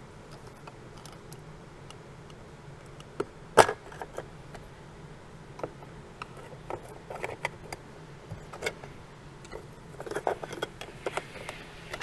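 Scattered small clicks and taps of a hand tool working on a car door's plastic inner trim panel, with one sharper click about three and a half seconds in.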